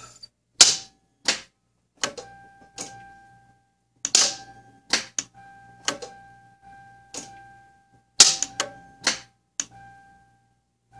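Sharp mechanical clicks, about fifteen at irregular intervals, with a short steady tone sounding between many of them, from a Toyota Camry that will not start.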